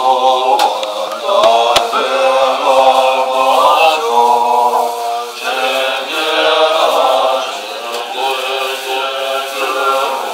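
Voices chanting Tibetan Buddhist prayers together in a steady, sustained recitation, with a few faint knocks in the first couple of seconds.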